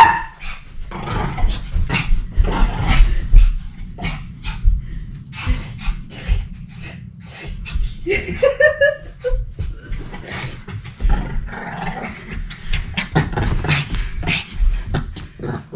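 A small long-haired dog playing rough with a person on a carpeted floor: a rapid string of short dog noises, scuffles and heavy thumps. A short pitched vocal sound comes about eight seconds in.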